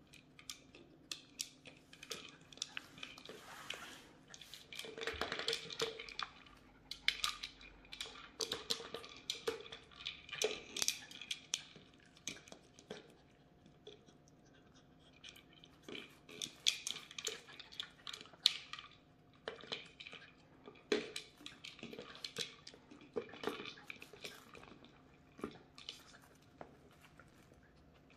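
Bichon Frise puppy licking and chewing at a broccoli-shaped treat toy to get the treats out: wet mouth sounds and irregular sharp clicks, with a short lull about halfway through.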